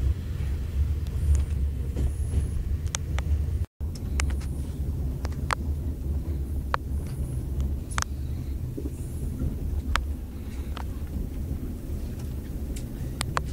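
Low, steady rumble of a sleeper-train carriage rolling along the track, heard from inside, with scattered sharp clicks and creaks. The sound cuts out briefly about four seconds in.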